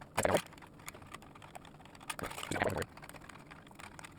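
Screwdriver tightening heatsink screws on a Mac Pro CPU tray: two short bursts of rapid clicking, a brief one at the start and a longer one a little past two seconds in.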